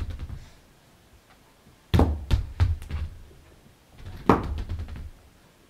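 Two clusters of quick knocks and thumps on something hard, about five strokes about two seconds in and a shorter run about four seconds in.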